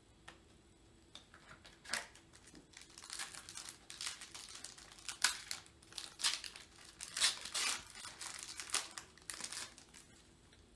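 Crinkling and tearing of a foil trading-card pack wrapper as it is opened and handled, with the cards rustling: a string of sharp crackles starting about a second in and dying away near the end.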